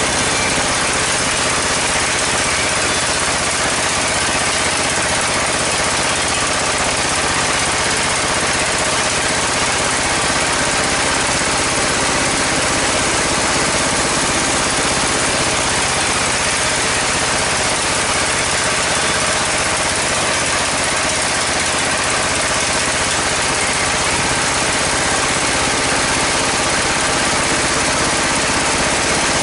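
Engine-driven band sawmill running steadily: the 24-horsepower engine and bandsaw make a constant mechanical drone with a hiss over it, unchanging throughout.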